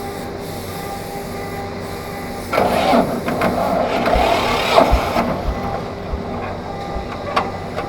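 Three-wheeled tractor's engine running steadily. From about two and a half seconds in, louder scraping and clattering join it for a few seconds, then ease off.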